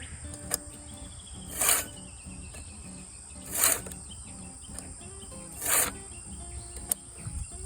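Hand file stroking across the cutter teeth of a Husqvarna Rancher 450 chainsaw chain during sharpening: three short filing strokes about two seconds apart. A steady high insect drone runs underneath.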